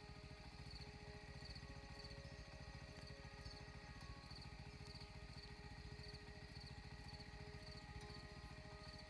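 Faint outdoor ambience: a high-pitched insect chirp repeating about twice a second over a steady low hum.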